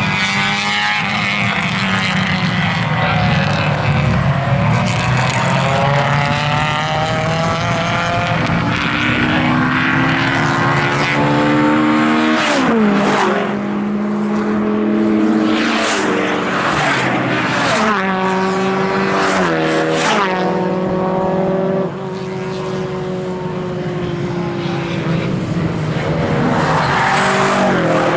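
Naturally aspirated four-cylinder engine of a Honda Civic race car run hard on track. The revs climb and then drop sharply, again and again, as the car goes through its gear changes.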